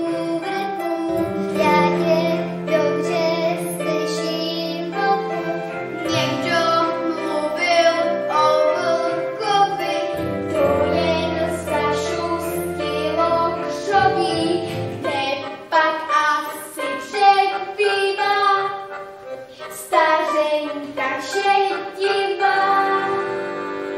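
A child singing a song from a children's mini-opera, over instrumental accompaniment with sustained low notes.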